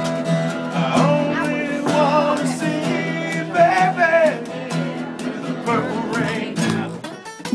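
A string band playing live: acoustic guitar strumming over upright bass, with a lead line that slides and bends between notes.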